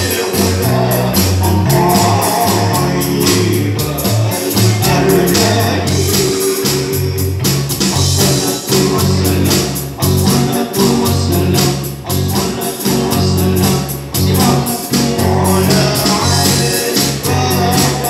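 Live amplified band playing a sholawat, a devotional song praising the Prophet Muhammad. Singing runs over electric guitars and an electronic drum kit, with a steady beat and a prominent bass line moving from note to note.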